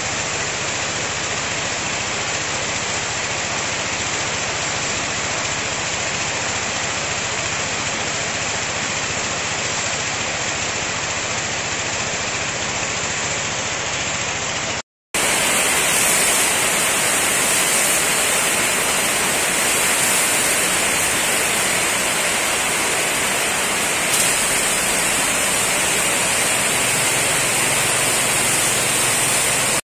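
Steady hiss of a high-pressure sprayer jet striking the coop's wet slatted floor and walls, with the low hum of the petrol-engine sprayer pump underneath. The sound cuts out briefly about halfway through, and the hiss comes back louder and brighter.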